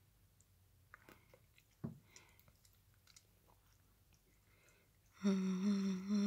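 A chihuahua chewing and nibbling at a blanket, with faint scattered clicks and a single knock about two seconds in. About five seconds in, a loud, steady hummed note comes in.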